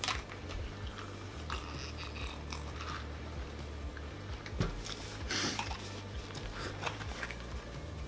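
Eating and table-handling sounds: chewing, with a sharp knock at the start, scattered clicks, and a short rustle of paper and cardboard packaging about five seconds in, over a low steady hum.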